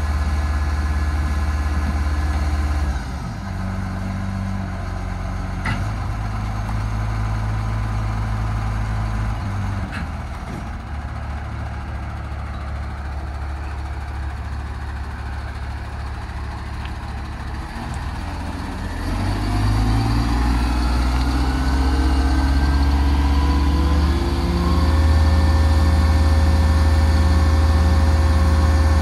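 Demag AC 40 City all-terrain crane's diesel engine running steadily, dropping to a lower speed about three seconds in. About two-thirds of the way through it rises in pitch and settles at a higher, steady speed.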